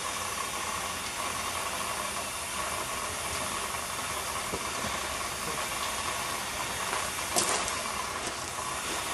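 A 15-inch gauge steam locomotive standing in steam, giving off a steady hiss of escaping steam. There is one brief sharp click about seven seconds in.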